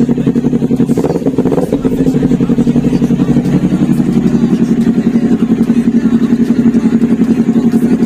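Kawasaki Ninja 400's parallel-twin engine idling loudly through an SC Project slip-on exhaust, a steady note with an even pulse.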